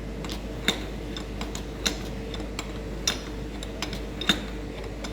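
Scattered sharp clicks and clinks of small hard objects being handled, at irregular intervals, over a steady hum.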